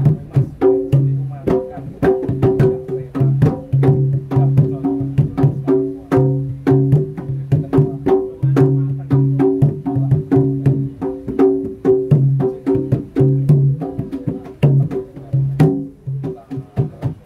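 Javanese jaranan accompaniment music: quick, steady drum and percussion strokes over a repeated low pitched tone, in short recurring phrases.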